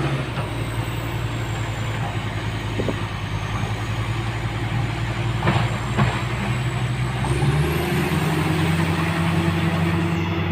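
Heavy-equipment diesel engine running steadily, its note rising as it revs up about three-quarters of the way through, with a couple of short knocks in the middle.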